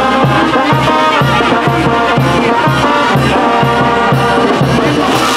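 Regional brass band music, horns playing a tune over a steady beat.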